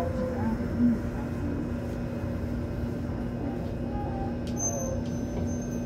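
Daegu Metro Line 3 rubber-tyred monorail car running on its elevated guideway, heard from inside the cabin: a steady low rumble with a constant hum.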